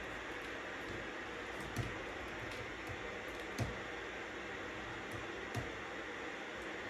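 Steady white-noise hiss with sparse, irregular computer keyboard clicks from typing, three of them louder than the rest.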